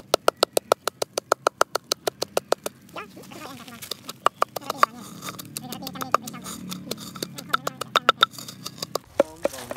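Wooden pestle pounding garlic cloves in a heavy wooden mortar: rapid, even knocks about five a second, thinning to scattered strikes after about three seconds and picking up again near the end.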